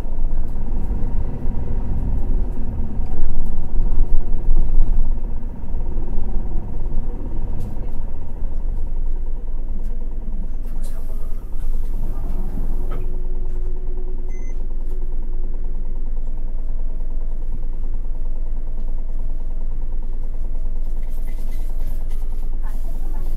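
Inside a Toei city bus on the move: diesel engine and road rumble, heavy and varying for the first few seconds, then easing to a steadier, quieter run. Short hisses of air come about halfway through.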